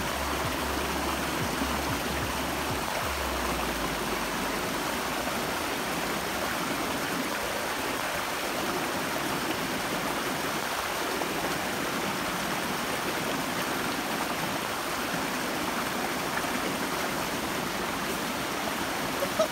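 Steady rush of a rocky mountain stream flowing over boulders, with a low rumble in the first few seconds.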